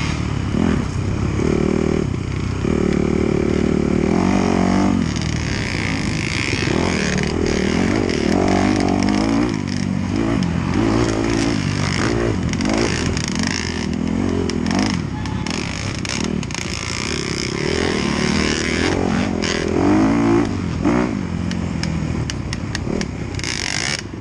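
Dirt bike engine heard from on board, revving up and dropping back over and over as the rider works the throttle and gears along a rough woods trail.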